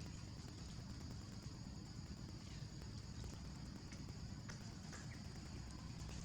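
Outdoor forest ambience: a steady high-pitched insect drone over low rumble, with scattered light clicks and taps.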